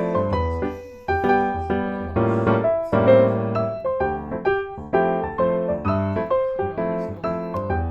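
Background music: a light, bouncy piano-led instrumental with a bass line.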